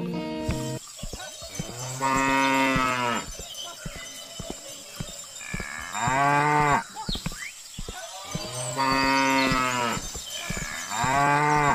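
Four long cow moos, each about a second long, with faint clicking between them.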